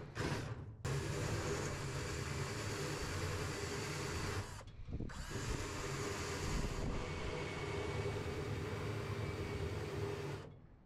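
Handheld power tool running steadily with a constant whine, stopping briefly twice; it is being used to strip rust from a vintage metal toolbox.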